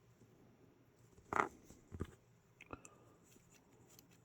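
A few light clicks and a brief rustle of small plastic scale-model parts being handled and pressed into place: one rustle about a second and a half in, then two sharp clicks.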